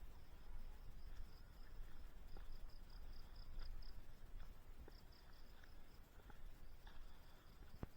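Insects calling in a faint, steady high trill that pulses in short beats, over a low rumble and a few faint clicks.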